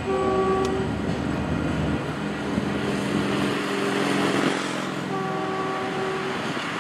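MBTA commuter train's horn sounding a short chord blast at the start and a second blast about five seconds in, over the steady rumble of the diesel-hauled train rolling away.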